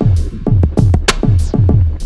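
Electronic dance music with a heavy, fast bass-drum beat, about four kicks a second, and sharp snare or hi-hat hits.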